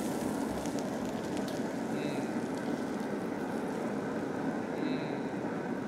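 Wood-pellet grill fire burning at high heat with a steady rushing noise, with the seared steaks sizzling.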